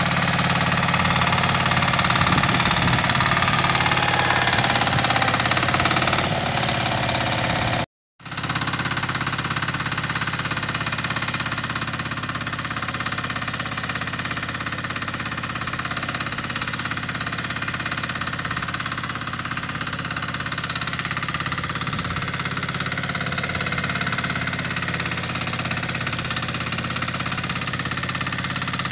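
Shrachi mini power tiller's engine running steadily as it tows a trolley loaded with firewood. About eight seconds in the sound drops out for a moment, then the engine is heard again more faintly.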